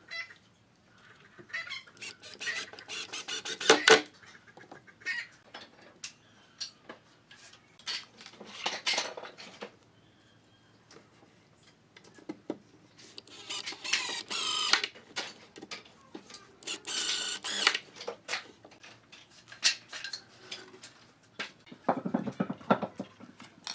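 Wood screws being driven into pine boards with a hand screwdriver: scattered light clicks, knocks and metal clinks, with two longer stretches of grinding around the middle as screws turn in. A duller handling sound of wood and tools comes near the end.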